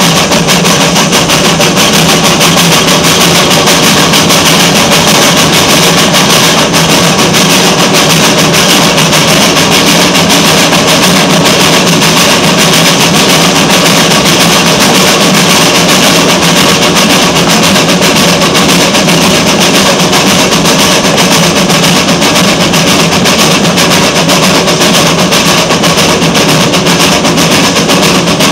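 Narrow-gauge NA class 2-6-2T steam locomotive working along the line, heard close up from just behind the engine: a steady, continuous beat of exhaust chuffs with the clatter of the train running.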